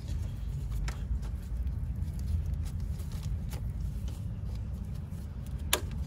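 A few short plastic clicks as engine-bay hoses are unclipped from their plastic retaining clips, the loudest near the end, over a steady low rumble.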